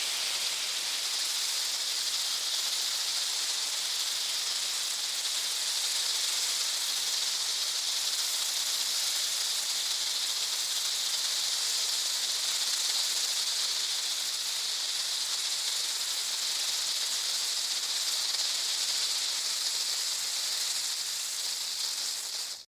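Smoke grenade hissing steadily as it pours out smoke, a high, even hiss that cuts off suddenly near the end.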